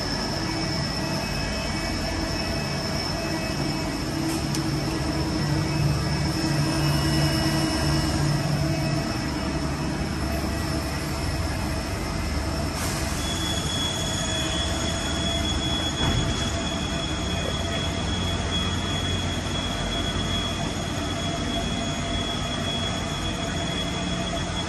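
Running CNC machine tools: a steady mechanical hum with several high, steady whines over it. About halfway through, the highest whine stops and new whines at other pitches take over.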